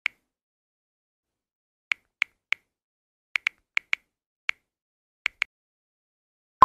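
Computer keyboard typing sound effect: about a dozen separate, sharp key clicks at an uneven typing pace, then a heavier, lower double click near the end.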